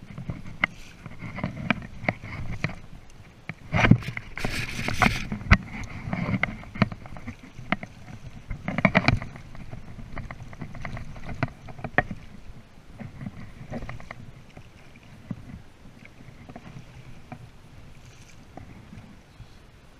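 Water splashing and sloshing around a landing net as a hooked grilse is played in to be netted, with sharp knocks and clicks scattered through it; the splashing is loudest in bursts about four and nine seconds in, then settles to lighter lapping and occasional ticks.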